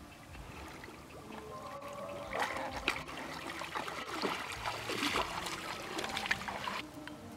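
Water splashing and sloshing as sambar deer wade through shallow river water. It is choppy and irregular, starting about two seconds in and stopping just before the end.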